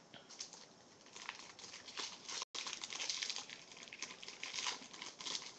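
Foil trading-card pack wrapper being crinkled and torn open by hand: an irregular crackle that starts about a second in, with a brief cut-out in the recording about halfway through.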